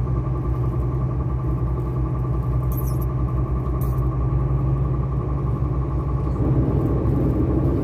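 Truck engine running steadily, growing a little louder about six seconds in, with two short hisses about three and four seconds in.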